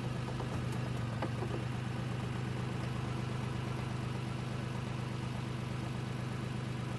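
Lexus 400h hybrid running in drive with the brake held: a steady hum with a fast, even pulsing underneath and a few faint clicks about a second in. The car is being checked for a knock in its automatic transmission.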